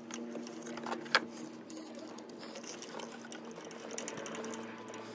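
Small clicks and knocks of hands handling a coolant bypass valve, its hose connector and fittings in an engine bay, with one sharper click about a second in, over a steady low hum.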